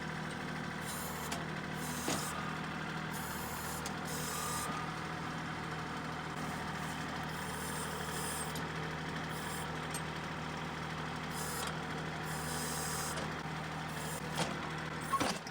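Kubota compact tractor's diesel engine idling steadily, with a couple of sharp knocks, one about two seconds in and one near the end.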